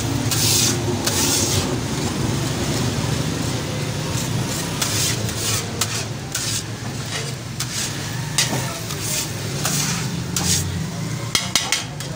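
A flat metal scraper scrapes again and again across a large, hot, oiled iron griddle, each stroke a short rasp over the sizzle of oil, with a steady low hum beneath. A few sharp clicks come near the end.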